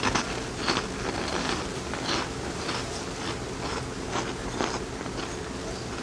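Close-up chewing of pasta, with short, irregular mouth clicks and smacks coming a few times a second over a steady low hum.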